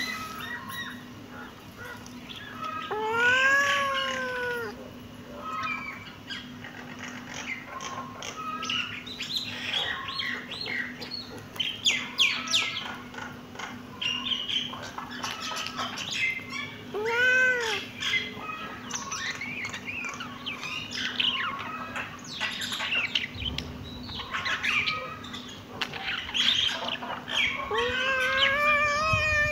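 Kittens meowing: three long, drawn-out meows that rise and fall, about three seconds in, in the middle and near the end, with many short high squeaks and mews between them.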